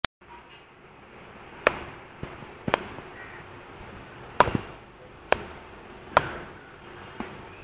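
Blade chopping fish: about six sharp chops, roughly a second apart at uneven intervals, the last one weaker.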